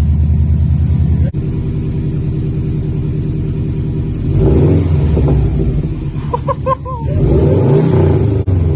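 Exhaust of a 2005 Subaru Legacy GT's turbocharged 2.5-litre flat-four idling steadily, then revved up and back down twice in the second half.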